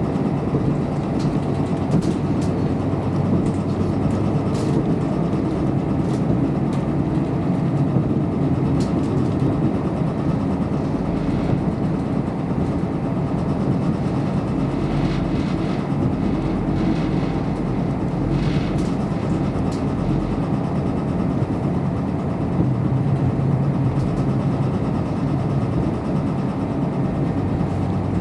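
Inside the cabin of a KiHa 54 diesel railcar under way: a steady drone of the engine and the running gear on the rails, with a few faint clicks.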